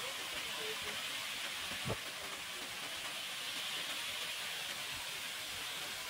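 Waterfall pouring down a mossy cliff into a pool: a steady rushing hiss of falling and splashing water. A brief low thump sounds about two seconds in.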